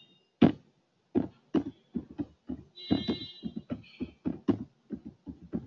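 Irregular keystrokes on a computer keyboard as a sentence is typed, about three or four clicks a second. A brief high tone sounds about three seconds in.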